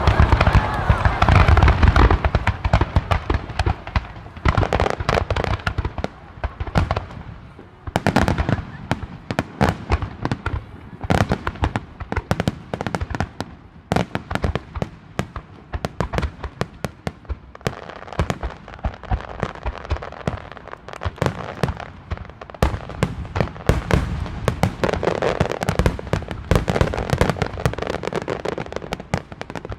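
Starmine fireworks barrage: large aerial shells fired in rapid succession, a dense unbroken run of sharp bangs with several bursts a second, heaviest in the first two seconds.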